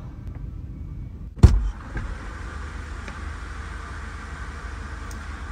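A single loud thump about a second and a half in, followed by a steady low hum.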